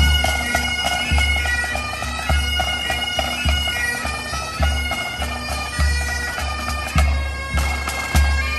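A pipe band playing on the march: bagpipes sounding their steady drone under the chanter melody, with snare and bass drums keeping the beat, a heavy drum stroke about once a second.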